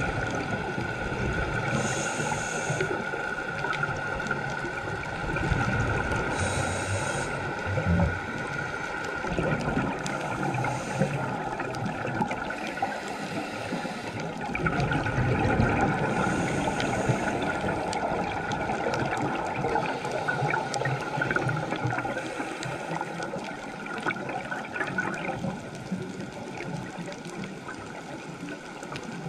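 Underwater sound of a scuba diver's regulator breathing: a short hissing inhale every few seconds and bubbling exhales between them, over a steady high hum.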